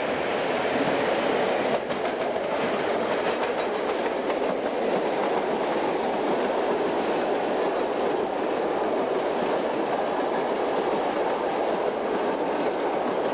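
Passenger train hauled by an EU07 electric locomotive rolling past, a steady rumble of coaches with the clickety-clack of wheels over rail joints.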